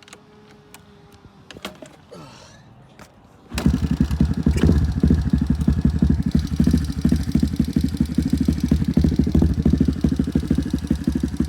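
Big-bore Kawasaki KLX110 pit bike engine (143 kit, Mikuni carburetor) starting. A few faint clicks come first, then the engine catches suddenly about three and a half seconds in and runs on with a rapid, steady firing beat.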